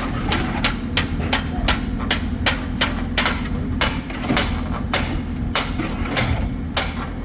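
Rapid, steady hammer knocks on column formwork, about three a second, over a low engine running steadily underneath.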